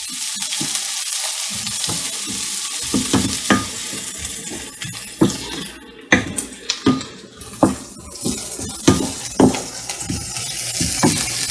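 Chopped onions and garlic sizzling in hot olive oil in a pan. A utensil scrapes and knocks against the pan as they are stirred, over and over from about three seconds in.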